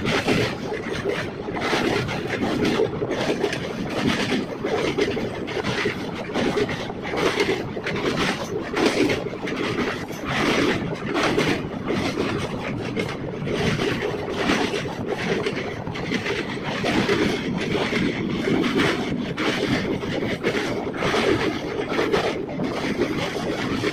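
Passenger train running at speed over a river bridge, heard at an open coach window: a loud, continuous rumble of wheels on the track with repeated clacks, and wind buffeting the microphone.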